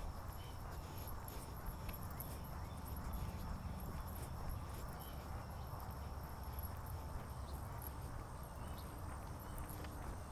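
Footsteps of sneakers walking at a steady pace on a coarse asphalt path, over a constant low rumble.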